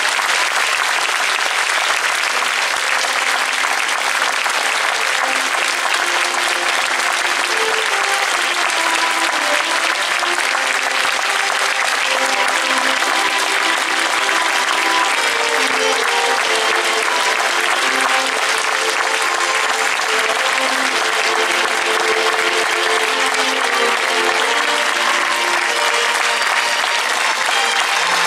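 Audience applauding steadily at length, with a tune played on instruments underneath that comes through more clearly after the first few seconds.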